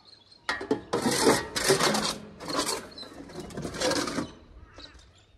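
A shovel scraping and scooping cow manure, about five scrapes in quick succession, stopping a little after four seconds in.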